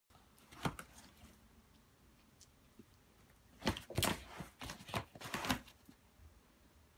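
A dog rummaging through a canvas bag of plush toys, rustling the fabric and jostling the toys. There is a short rustle near the start, then a cluster of scratchy rustles in the middle of the clip.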